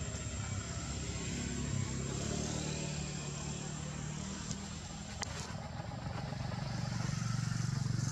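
Low, steady engine hum like a motor vehicle running, getting louder near the end, with two small sharp clicks in the middle.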